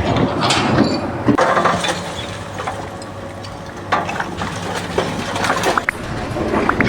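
Mechanical clatter: a run of knocks and clinks over a steady low machine hum.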